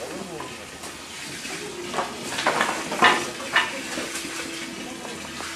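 Wood crackling and snapping, with a cluster of sharper cracks from about two to three and a half seconds in, the loudest near three seconds.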